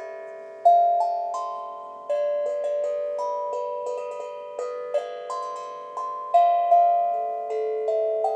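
Small steel tongue drum played as a slow, free melody. Single notes are struck every half second or so, each ringing on and overlapping the next.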